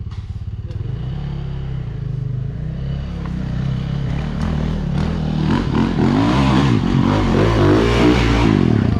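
Motocross bike engines: a steady low engine hum, then from about five seconds in a dirt bike revving and coming closer, growing louder with its pitch rising and falling as the rider works the throttle.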